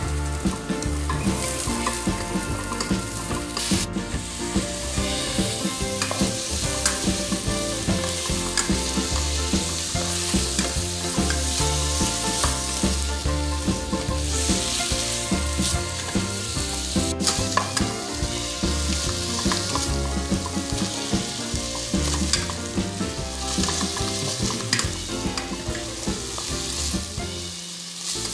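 Chicken breast pieces sizzling in hot oil with sautéed garlic and onion in a frying pan, stirred and turned with a plastic spatula that scrapes the pan and knocks on it sharply a couple of times.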